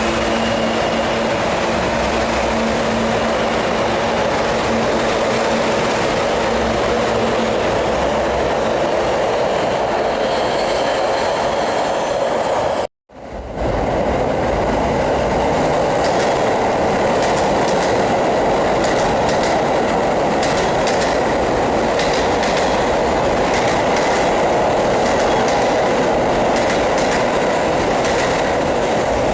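New York City subway train running through a station: a loud, steady rumble of steel wheels on rail, with clicks over the rail joints. The sound cuts out abruptly for a moment about halfway through, then carries on.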